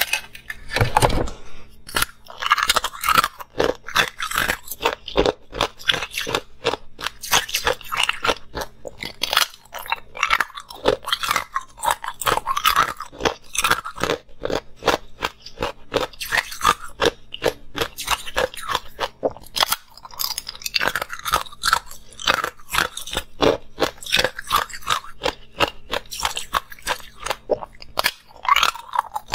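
Ice being bitten off a tray-shaped block of frozen cubes and chewed: a dense, unbroken run of sharp cracks and crunches.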